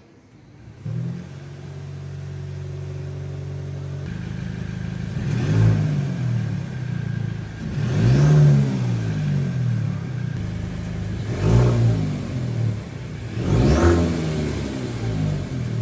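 Mercedes-Benz E-Class engine starting about a second in and idling steadily, then revved four times, each rev rising and falling back to idle.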